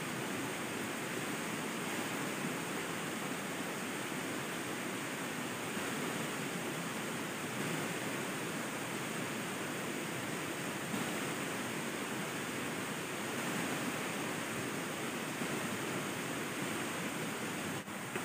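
Steady rushing of a river's flowing water, an even wash of noise with no breaks.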